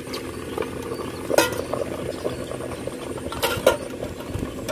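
Water boiling in an idli steamer with its lid lifted off, a steady bubbling. Sharp metal clinks from the lid or steamer vessel come about a second and a half in and twice more a little past the middle.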